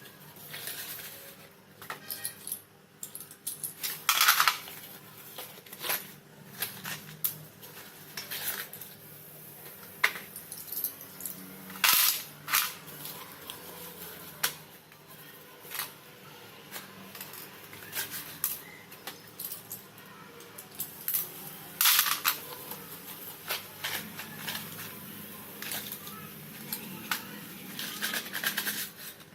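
Slate pencils snapping and crunching: sharp, irregular cracks, the loudest about 4, 12 and 22 seconds in, with smaller crackles between.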